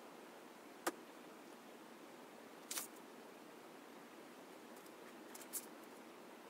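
Faint room hiss with a few soft handling noises from a paperback book being held and read: a sharp click about a second in, a brief paper rustle just before the middle, and two small ticks later on.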